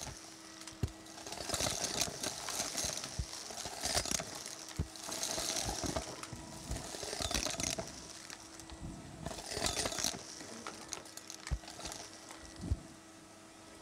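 Henry Hoover cylinder vacuum cleaner running on carpet and sucking up clumps of fluff and small hard debris, with its motor humming steadily. Repeated swells of rushing air come as each clump goes in, and sharp clicks and rattles come as hard bits are pulled through the floor head and hose. The pickup sounds thin out near the end.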